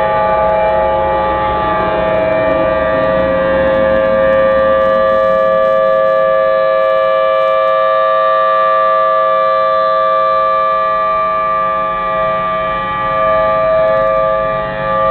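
Outdoor civil defense sirens sounding the tsunami warning: a loud, steady held tone with no rise or fall in pitch, wavering slightly in level near the end.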